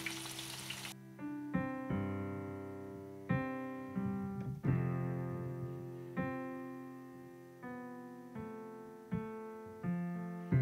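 Background piano music: slow notes and chords, each struck and left to ring and fade. Frying oil sizzles for the first second and then cuts off.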